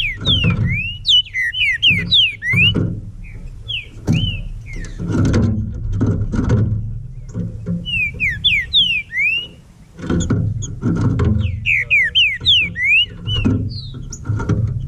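Green-winged saltator (trinca-ferro) singing: short phrases of clear, slurred whistled notes, repeated four times with pauses between. Background music with a bass line plays underneath.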